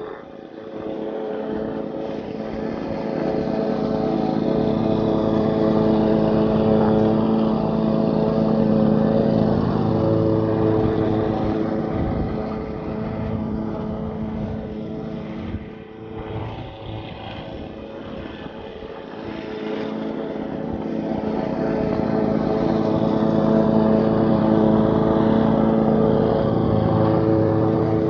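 Walk-behind lawn mower running steadily as it is pushed across the grass, getting louder and fainter as it moves nearer and farther away: loud in the first third, fainter around the middle, loud again near the end.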